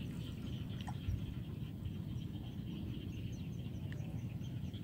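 Quiet outdoor ambience: a steady low rumble under faint high chirping. Near the middle there is a short run of small high chirps, about three a second.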